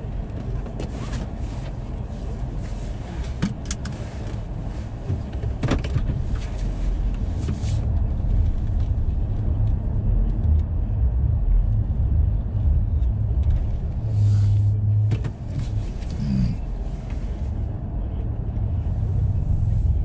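Car interior noise while driving through a blizzard: a steady low rumble from the car and the storm wind on its body, with scattered sharp ticks and a brief louder drone about three quarters of the way through.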